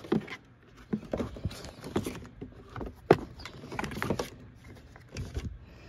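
Irregular knocks and clicks, roughly one a second with the sharpest a little after three seconds in: a wire being fed back through a car's interior trim and floor panels.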